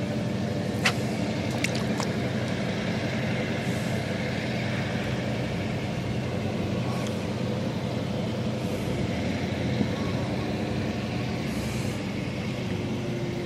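A steady low engine-like hum with several sharp clicks in the first two seconds.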